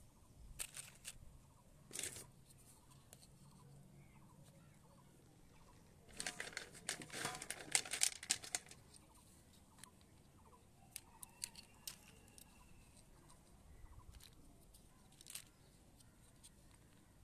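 Large hollow plastic building blocks clicking and knocking as they are handled and pressed onto one another, with a dense run of rattling clicks about six to nine seconds in and single clicks scattered through the rest.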